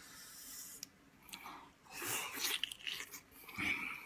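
Soft wet chewing and mouth smacks from a mouthful of boiled pork belly, coming in several short bursts.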